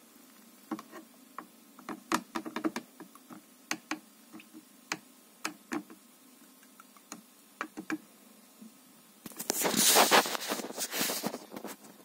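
Scattered clicks and knocks of a spatula and a 3D printer's build plate being handled, then about two seconds of scraping near the end as the spatula works the resin print off the build plate.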